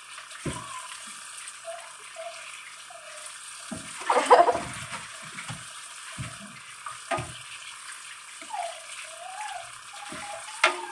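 Kitchen tap running into a sink as raw chicken pieces are washed by hand, with irregular handling sounds, the loudest about four seconds in and a sharp one near the end.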